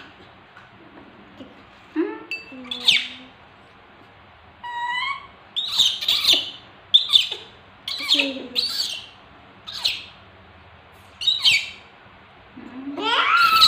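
Baby macaques squealing: about a dozen short, high-pitched calls at irregular intervals, some rising and some falling in pitch, with a longer, louder cry near the end.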